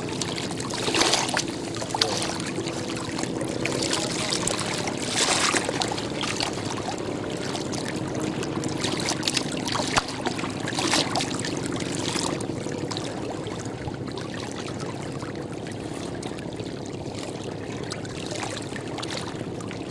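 Small river waves lapping and splashing against a muddy bank, swelling briefly a few times over a steady wash of water.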